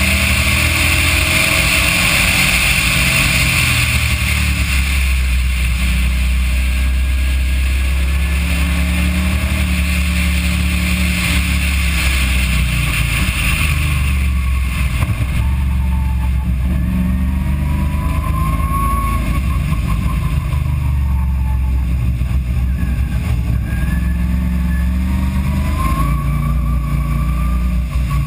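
Car engine and road rumble heard from inside the car at speed through a poor, heavily rumbling microphone. Revs fall as the car slows from high speed, then pick up again in a lower gear near the end.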